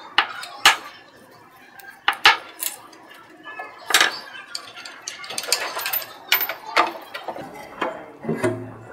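Scattered metal clicks and clinks as small Allen screws and an Allen key are handled and set down on a scroll vacuum pump's housing and bench, then a short low rub near the end as the pump's fixed scroll housing is worked loose.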